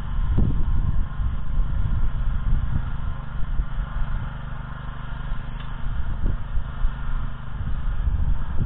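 Petrol engine of a walk-behind tractor (motoblock) running steadily under load as it tills the garden soil.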